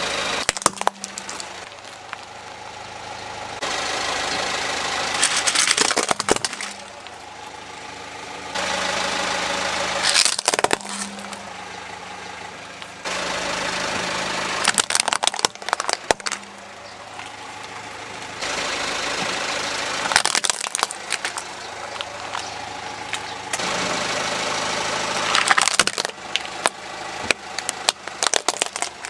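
A car engine idling as the car's tyre rolls over hard plastic toys one after another. Each toy breaks with a quick cluster of loud cracks and snaps, roughly every five seconds, between stretches of steady engine noise.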